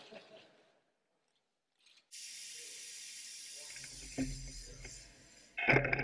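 A steady hiss starts suddenly about two seconds in, with a low rumble joining under it. Near the end a loud rising whine sets in as the Light Rider's 6 kW electric motor spins up.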